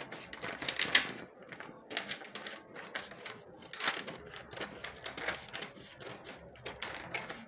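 Scissors cutting through brown pattern paper: a run of irregular crisp snips with the paper crackling.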